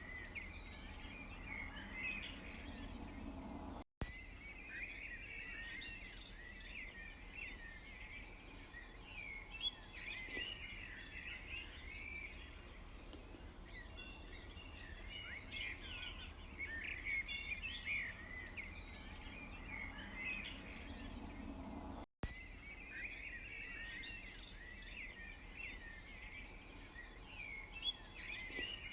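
Many small birds chirping and twittering together in a continuous busy chorus, over a faint low background rumble. The sound cuts out for an instant twice, about four seconds in and again near twenty-two seconds.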